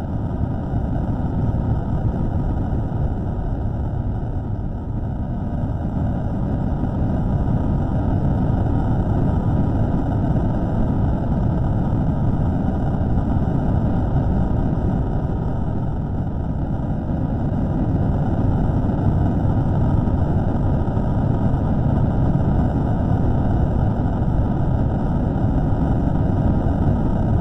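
Slowed-down microphone recording of a steady low rumbling noise with no clear tone or rhythm, rising in at the start and then holding level.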